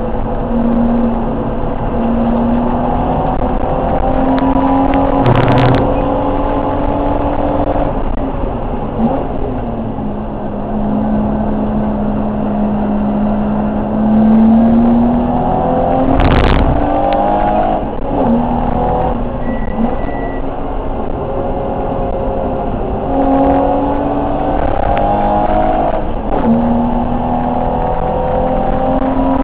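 BMW E30 325's straight-six engine at racing revs, heard from inside the stripped cabin, climbing in pitch through the gears with a drop at each upshift and one long stretch held at near-steady revs. A loud thump about halfway through.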